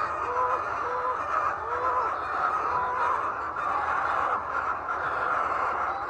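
A large flock of laying hens clucking and calling together: a steady dense din with short, repeated arched clucks on top.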